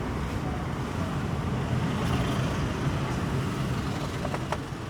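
Street traffic heard from a moving car: a steady rumble of engines and road noise, with a couple of faint ticks about four and a half seconds in.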